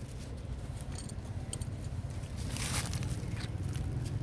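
Light rustling and small clicks, with a short louder rustle about two and a half seconds in, over a steady low hum.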